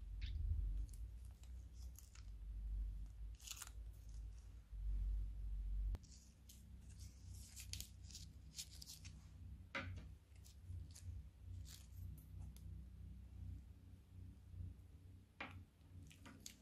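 Plastic piping bags crinkling and crackling as they are handled and squeezed, in scattered short snaps with low handling rumble in the first few seconds.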